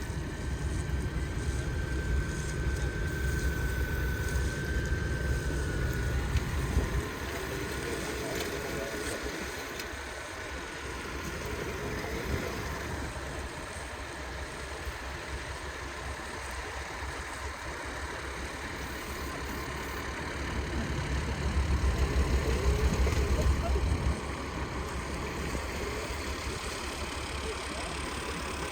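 Tractor engine running, louder for the first several seconds and again about three-quarters of the way through, with a thin steady whine over the first few seconds.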